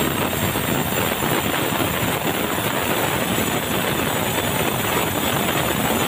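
Sawmill band saw cutting lengthwise through a red meranti timber: a loud, steady rushing of blade through wood with a rapid flutter, over the running of the mill machinery.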